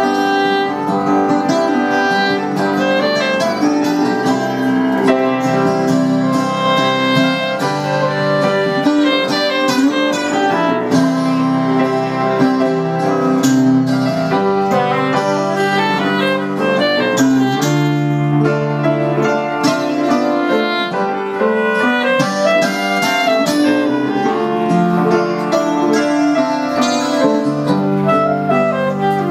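Live instrumental jam by a trio: electric guitar, keyboard and soprano saxophone playing together, with long held notes and melodic lines over the guitar.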